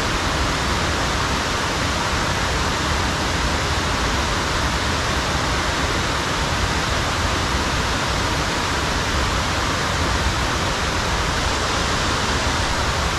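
Steady, even rushing noise of water, unchanging throughout.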